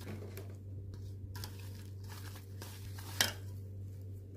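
A hand rubbing and tossing dry flour with chopped fenugreek leaves in a stainless steel bowl: soft, irregular rustling and scraping, with one sharper stroke a little after three seconds in.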